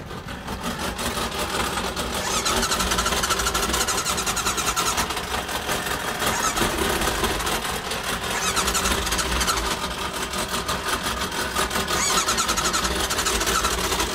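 Motorboat engine running as the boat gets under way at low speed, getting a little louder over the first couple of seconds and then holding steady.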